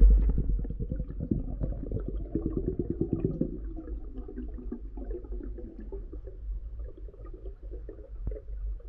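Underwater sound around a swimming diver: a steady low rumble with a dense run of crackling clicks that thins out after about three and a half seconds.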